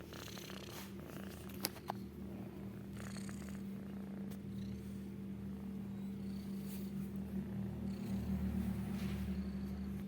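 Domestic cat purring with a steady, rattling drone that sounds like a small generator running.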